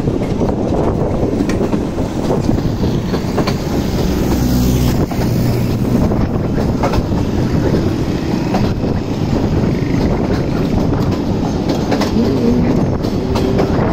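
Pakistan Railways passenger train running at speed, heard from aboard a coach: a steady rumble of the wheels on the track with frequent clicks and clatter as the wheels cross rail joints.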